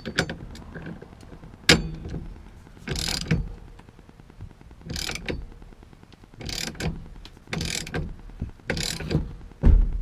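Hand ratchet wrench tightening the steering-shaft nut, clicking in short bursts about every second to second and a half. A sharp click comes early and a heavy thump just before the end.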